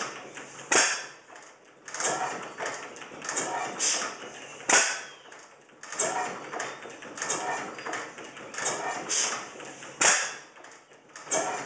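Circa-1896 6 HP Springfield overhead-cam stationary gas engine running, its exposed valve gear and mechanism clicking and clattering in a busy rhythm. A much louder sharp bang comes three times, about a second, five seconds and ten seconds in.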